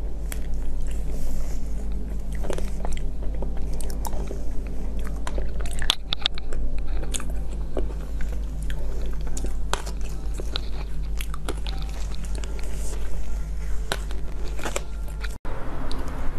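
Close-up eating sounds of a cake being eaten by spoon: chewing and biting with many sharp mouth clicks, over a steady low hum. The sound drops out briefly about a second before the end.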